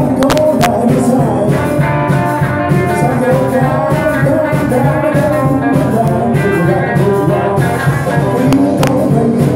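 Live band playing amplified rock and roll, with electric guitars and drums, loud and steady throughout.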